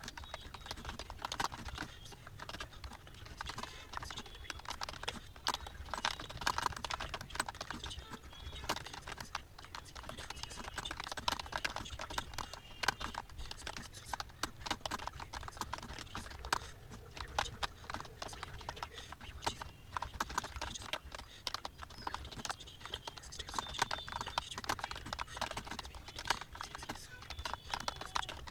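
Fast, continuous typing on a computer keyboard: a steady, irregular stream of keystroke clicks, several a second, during a timed typing test.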